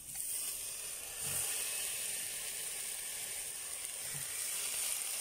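Raw tongues sizzling in a hot cast-iron kazan with frying onion and carrot rounds. The sizzle steps up as they go in, at the start and again about a second in, then holds steady.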